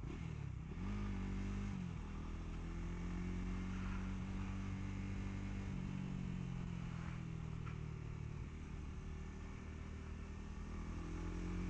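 Honda CBR150R's single-cylinder engine pulling at steady cruising revs on the highway. Its pitch climbs about a second in, eases off a little in the second half and climbs again near the end, under steady wind rush.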